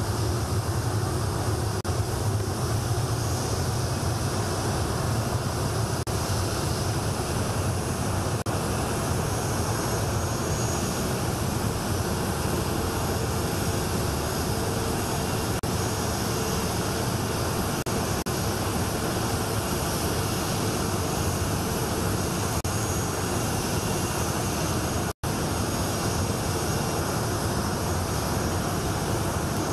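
Jet engines of the Indonesian presidential aircraft running steadily on the ground: a constant rushing noise with a faint steady whine. The sound cuts out for an instant about 25 seconds in.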